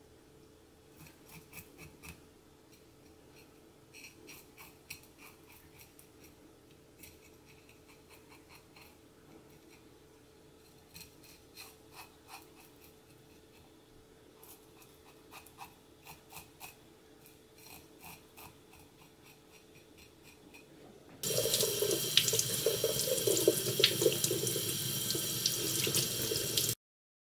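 Kitchen knife scraping the scales off a horse mackerel on a wooden cutting board: faint, short scrapes in clusters. About 21 seconds in, a kitchen tap starts running loudly into a stainless steel sink as the fish is rinsed, then cuts off suddenly just before the end.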